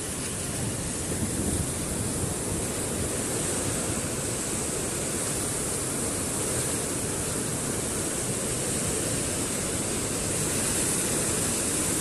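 Muddy flash-flood torrent rushing, a steady, unbroken noise of churning water.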